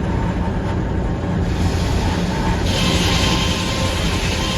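Sawmill running steadily, with the saw entering the red oak log: a hissing cutting sound rises about a second and a half in and grows louder near the middle, then holds over the machinery's low hum.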